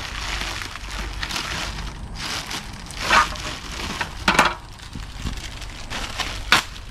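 Packaging being handled and unwrapped during unboxing: a steady rustling and crinkling, with a few louder crackles in the second half.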